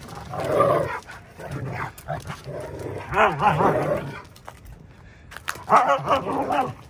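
Two huskies play-wrestling, growling and barking at each other in about four bursts. The loudest bursts come about three seconds in and near the end.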